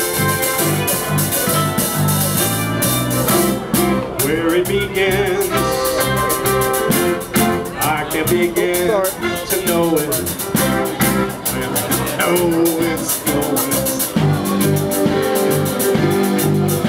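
A live band playing: keyboard piano, electric guitar, bass guitar and drum kit, over a steady beat with a melody line on top.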